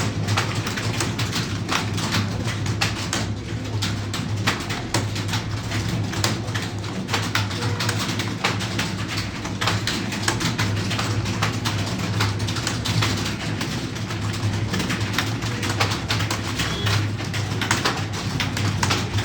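Fast typing on a computer keyboard: a dense, irregular stream of keystroke clicks over a steady low hum.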